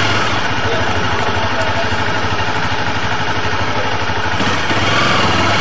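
A vehicle's engine running under a steady rush of road and wind noise on the dashcam's microphone.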